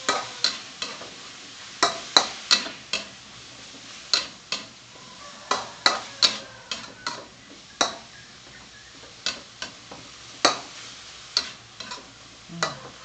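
A metal spatula scraping and knocking against a wok as minced pork is stir-fried over a steady sizzle. The sharp scrapes come irregularly, about once or twice a second.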